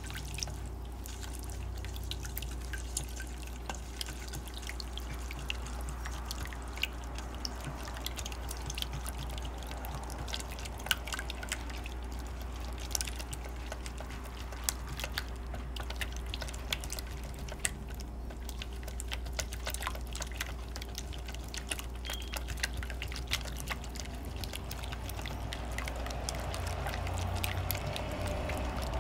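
A whisk beating a mayonnaise dressing in a stainless steel bowl: quick, irregular clicks of the whisk against the metal over a wet stirring sound.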